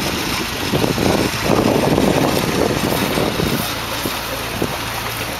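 SUV engine running under load as the vehicle works its way through deep mud, a dense rough noise that eases about three and a half seconds in to a steadier low hum.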